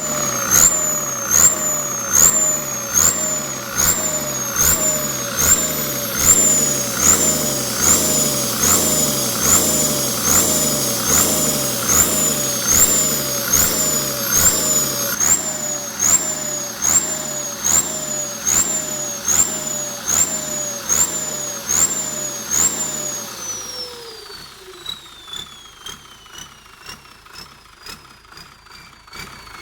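T04 turbocharger whistling and hissing in a pulsing 'singing' pattern: the high whine rises and snaps back about every three-quarters of a second. About 23 seconds in the pulsing stops and the turbo winds down, its whistle falling steadily in pitch as it gets quieter.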